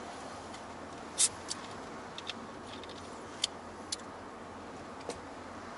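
Inside a car rolling slowly: steady low tyre and cabin noise, with several sharp clicks or ticks scattered through it, the loudest a little over a second in.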